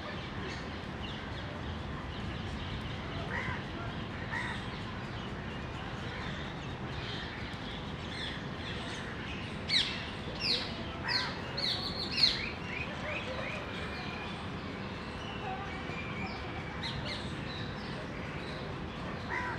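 A bird gives a quick run of sharp, high chirps, each sweeping downward, for about three seconds midway. Steady outdoor background hiss runs underneath, with a few fainter calls before and after.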